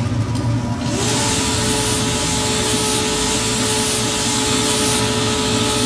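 Mechanical workshop noise: a power tool running with a steady whine that comes in about a second in and glides down at the end, over a dense steady noise.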